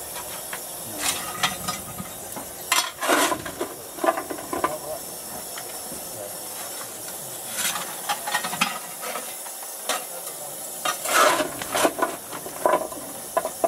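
Metal tools clanking and scraping in the cab of a miniature steam locomotive as the crewman works at the firehole, in irregular bunches of knocks and scrapes, over a steady hiss of steam.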